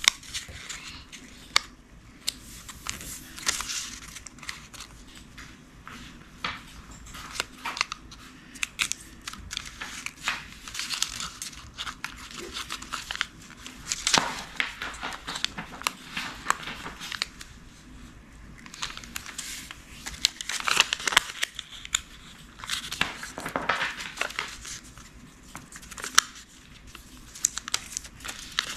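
Origami paper rustling and crinkling as it is folded and creased by hand, in short, irregular crisp bursts.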